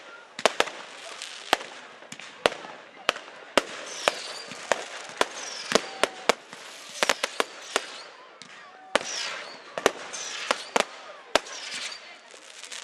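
Firework barrage cakes firing: an irregular rapid series of sharp bangs, about one or two a second, with a hiss between the shots.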